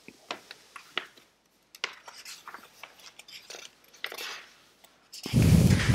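A scatter of light clicks and clinks, like small hard objects being handled, then a louder sound lasting about a second near the end.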